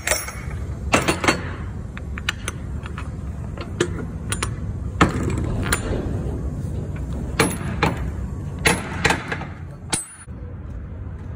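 Scattered sharp metallic clanks and knocks, about eight in all, over a steady low rumble.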